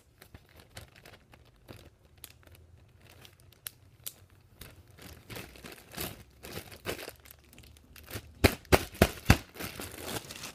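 Slime being handled and put back into its plastic container: small sticky crackles and clicks that get busier partway through, ending in a quick run of about five loud sharp clicks.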